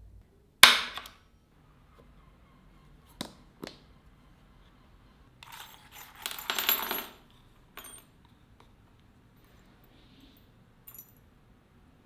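A sharp metallic clink with a short ring, then a couple of light taps. A second or two of clinking and rattling follows as a handful of steel twist drill bits is tipped out of its holder onto a wooden workbench, and single faint clicks come after.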